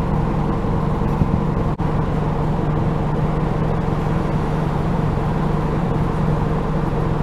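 Steady engine hum and road noise of a city sightseeing bus under way, heard inside the passenger cabin.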